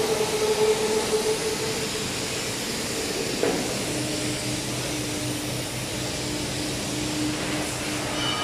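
Steady machinery noise on a foundry floor: a continuous hiss with a low hum whose pitch shifts about four seconds in, and a single knock about three and a half seconds in.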